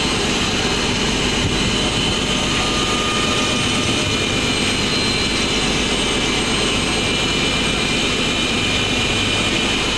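Fishing boat's engine running steadily at a constant drone.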